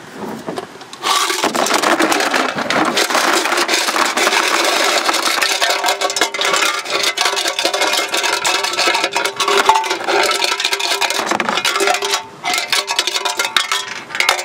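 A handful of loose square nuts rattling and clattering inside a rusty sheet-metal engine tank as it is shaken and emptied into a plastic tub, the nuts having scoured the rust crust off the tank's inside. The dense rattle starts about a second in and thins to a few scattered clinks near the end.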